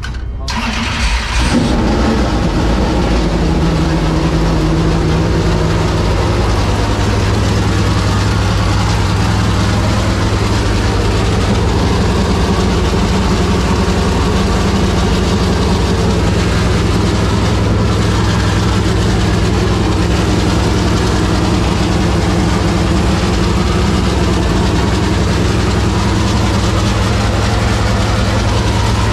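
A Super Late Model's freshly installed 445-cubic-inch SB2 Chevrolet small-block V8 race engine being cranked, catching about a second in, and then running at a steady idle. This is the first start of the engine after the swap, on fresh oil and coolant.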